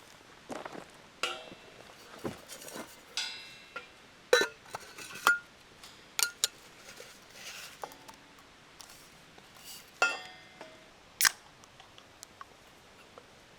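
Irregular clinks, taps and short scrapes of small hard objects being handled, some with a brief ringing, the louder knocks about four, five, ten and eleven seconds in.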